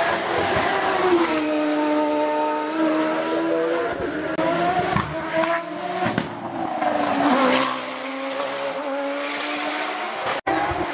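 Hillclimb race cars, a SilverCar EF10 and then a Norma M20FC sports prototype, accelerating hard uphill in turn, the engine pitch climbing and dropping with the gear changes. A short break about four seconds in marks the change from one car to the next.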